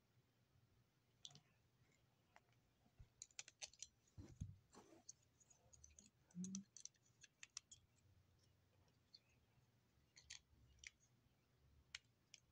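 Faint, scattered clicks and taps of small plastic Lego pieces being handled, in quick clusters, with a dull thump about four seconds in.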